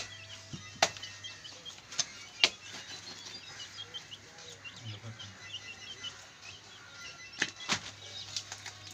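A large butcher's knife chopping into a hanging carcass's meat and bone, a few sharp hacks: about a second in, twice around two to two and a half seconds, and twice close together near the end. Small birds chirping throughout.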